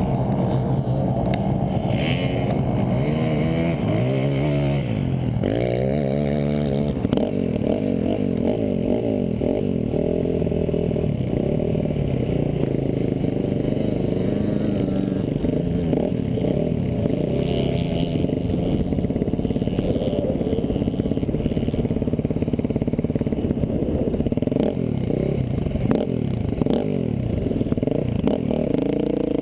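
Dirt bike engine running under load as it is ridden, its pitch rising and falling several times in the first seven seconds with throttle and gear changes, then holding fairly steady at speed.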